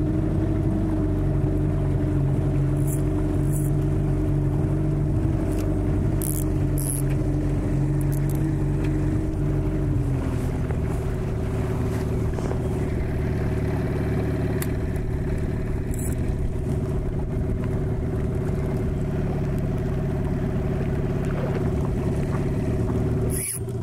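Hidea 9.9 hp outboard motor pushing the boat along at a steady low trolling speed, its note dropping slightly about ten seconds in, with a few light clicks over it.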